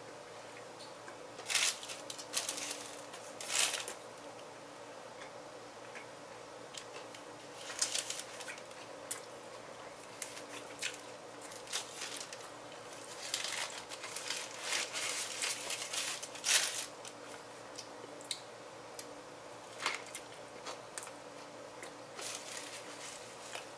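Paper sandwich wrapper crinkling and rustling in irregular bursts as it is peeled back from a sub sandwich by hand, over a faint steady hum.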